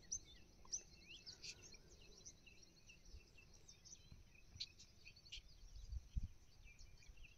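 Faint, scattered bird chirps over near silence, with a few soft low bumps about six seconds in.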